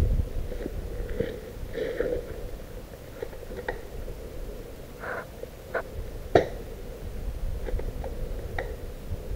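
SSG24 spring-powered airsoft sniper rifle, fitted with a Tridos airbrake, fired from about five metres away: a few faint sharp clicks and one louder snap a little past the middle. Wind rumbles on the microphone throughout.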